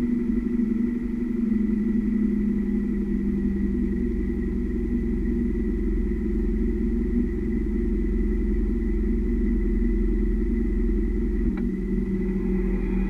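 Steady low rumble of a 200-series Toyota HiAce being driven, its road, tyre and drivetrain noise heard from beside the rear leaf spring. There is one faint knock about eleven and a half seconds in.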